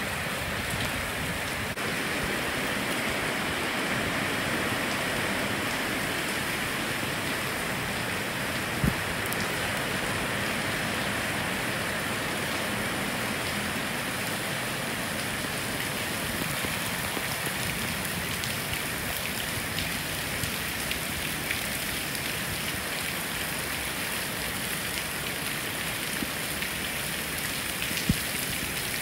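Heavy hurricane rain pouring steadily. Two brief sharp knocks come through it, about nine seconds in and near the end.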